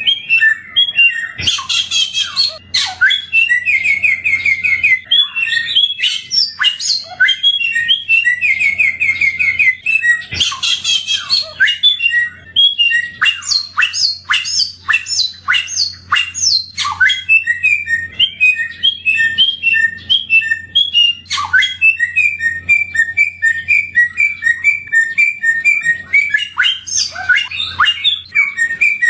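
A songbird known in Indonesia as the samyong, singing a long, varied song of rapid chirps and whistled notes, with fast rattling trills about two seconds in and again about ten seconds in.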